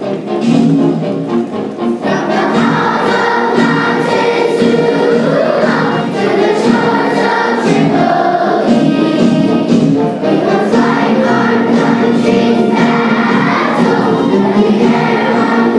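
A large group of schoolchildren singing together as a choir.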